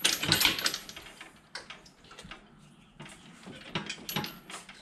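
Metal clinking and rattling of an engine hoist's lifting chain being handled, in a few short bursts, with the longest near the end.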